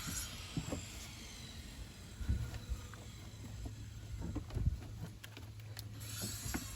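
A few short plastic knocks and clicks as the air filter housing is pushed and handled while the new filter is seated, over a steady low hum.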